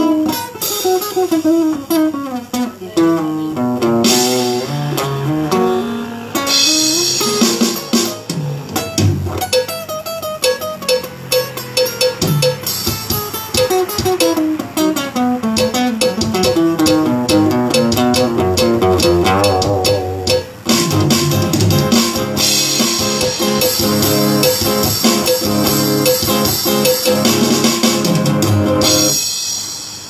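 A guitar playing fast runs of notes and wavering held notes over drums, with cymbals washing through most of it. The playing stops suddenly about a second before the end.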